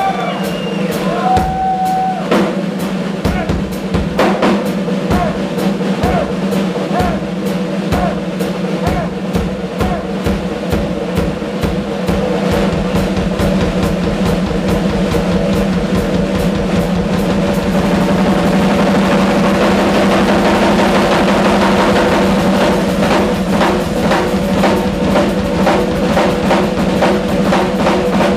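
Live rock drum solo on a ddrum kit: kick drum, snare and toms struck in fast patterns, with a steady low hum underneath. About two-thirds of the way through it thickens into a dense, slightly louder roll with a wash of cymbals.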